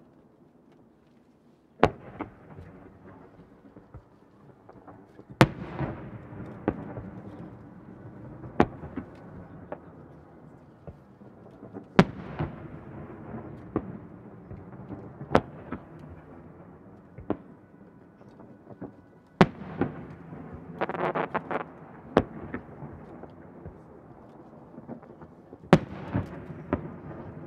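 Aerial firework shells bursting: about ten sharp bangs, roughly one every three seconds, each followed by a rolling, rumbling echo. About three quarters of the way in there is a quick run of crackling.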